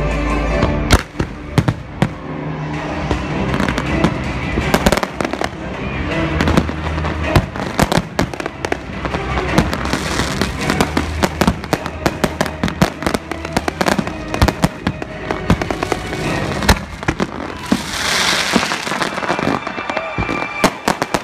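Professional fireworks display: many sharp booms and cracks of aerial shells and comets bursting in quick succession, with a burst of crackling about eighteen seconds in. Music plays steadily underneath.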